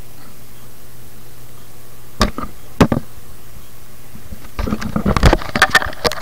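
Handling noise from a motorcycle helmet and its camera being moved about in the hands: two sharp knocks about two and three seconds in, then a rapid clatter of knocks and rubbing near the end, over a steady low hum.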